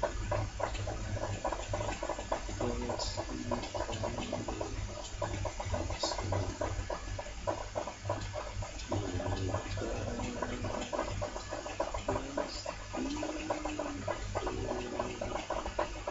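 A man softly singing wordless held notes, singing in tongues: a few short notes early, then longer sustained, gently bending notes from about nine seconds in. Under the notes runs a constant crackling, rumbling noise.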